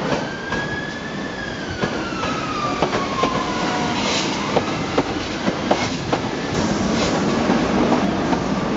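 Passenger train of Mark 3 coaches propelled by a Class 90 electric locomotive rolling past, wheels clicking irregularly over rail joints and points. A wheel squeal slides down in pitch over the first few seconds.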